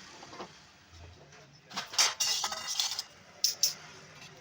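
Small metal parts clinking and clattering as they are handled: a burst of rapid clinks just before two seconds in, then two sharp clicks about a second later.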